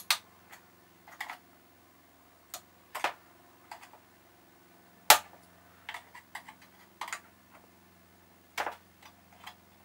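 Screwdriver tip working small metal retaining clips on the vacuum-pipe fastener of a Classic Mini SPi plastic air filter housing: irregular sharp clicks and taps, the loudest about five seconds in.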